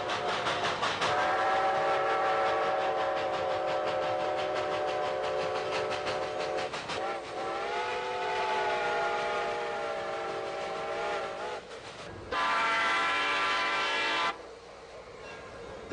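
Model train whistle blowing one long, steady blast that wavers in pitch after the middle, over rapid clicking of wheels on track. About twelve seconds in it gives a louder, two-second toot that cuts off sharply.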